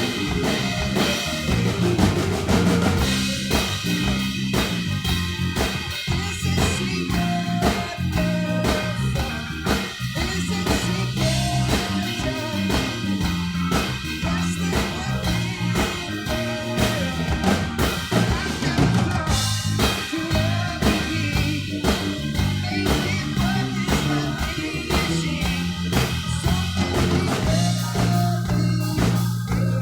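Live band playing an instrumental passage: a drum kit keeping a steady beat with kick drum, snare and rimshots over a bass line, with no singing.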